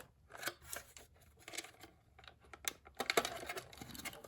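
Hard plastic clicking, knocking and scraping as a cordless phone base is turned over and handled, with a stretch of rubbing and rustling about three seconds in.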